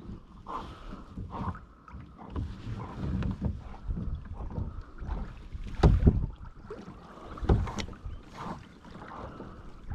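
Water splashing against the hull of a Hobie Mirage Pro Angler 14 pedal kayak under way, with wind buffeting the microphone. Uneven knocks run through it, the loudest thumps about six seconds in and again about a second and a half later.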